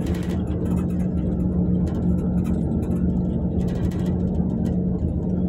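Karosa C935E bus heard from inside the passenger cabin: the engine drone is a steady low hum with a rumble under it. A few short, higher noises come over it near the start, about two seconds in and about four seconds in.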